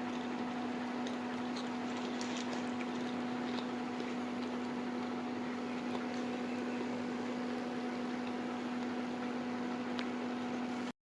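A steady hum with scattered faint crackles over it, cutting off suddenly near the end.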